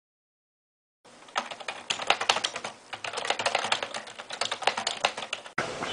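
Fast typing on a curved, split ergonomic computer keyboard: a quick, irregular run of key clicks. It starts about a second in and cuts off abruptly near the end.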